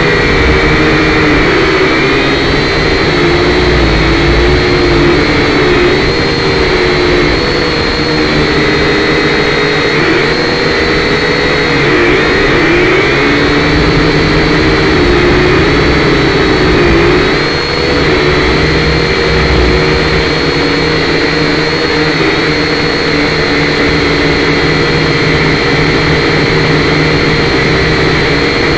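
Syma X5C quadcopter's four small brushed motors and propellers whining steadily, close to its own onboard camera's microphone. Several pitches waver up and down together as the motor speeds change in flight.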